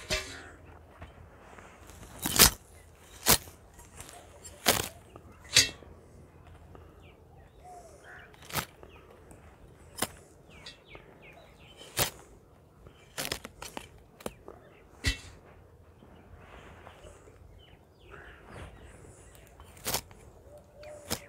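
A knife cutting through handfuls of carrot-top stalks: about a dozen sharp, crisp snaps at irregular intervals, one every second or two with longer gaps.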